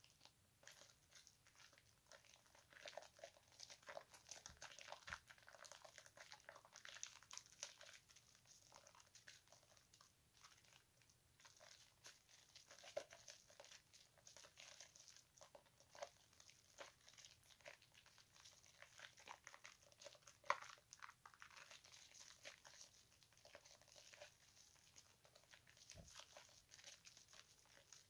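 Hands squeezing and kneading thick bar-soap lather in a basin of sudsy water: faint, continuous wet squishing and crackling of foam bubbles, with a few sharper pops.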